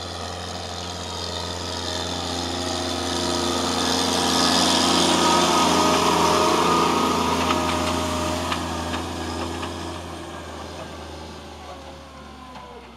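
Diesel engine of a large self-propelled slurry applicator driving past with its tine cultivator working slurry into stubble; the engine sound grows to its loudest about halfway through and then fades away. A few sharp clicks come through in the second half.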